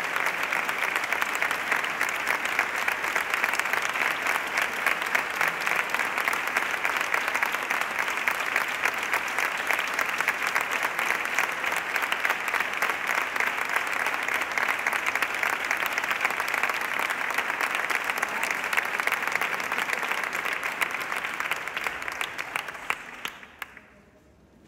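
Large audience applauding steadily, a dense sustained clapping that dies away near the end.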